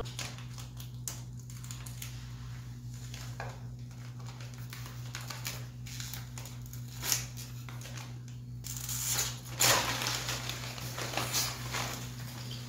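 A plastic chip bag being opened slowly and carefully, in scattered faint crinkles and clicks, with a louder burst of rustling about three-quarters of the way through. A steady low hum runs underneath.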